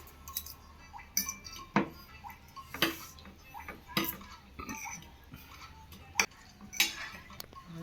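Metal cutlery clinking against plates in a series of separate sharp clinks, about a second apart, while noodles and seasoning are mixed on the plates.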